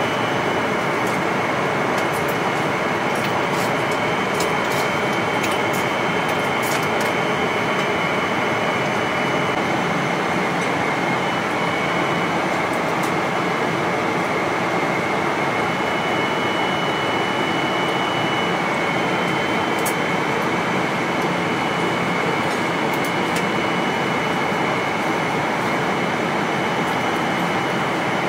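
Steady cabin noise of a Boeing 777-300ER airliner in flight, the even rush of airflow and engines heard from inside the cabin, with a faint high whine and a few faint light clicks.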